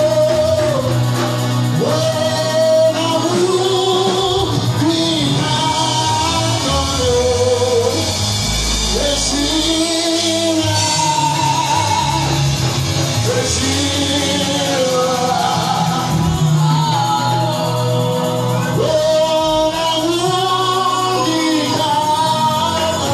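A male vocalist sings a gospel song through a microphone and PA, with held, sliding sung notes over a live band of drums and keyboard, in a reverberant hall.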